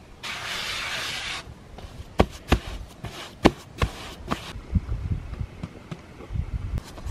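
Hands working balls of bread dough on a floured board: a short rubbing hiss near the start, then a run of sharp taps and soft slaps as the dough is pressed, rounded and set down.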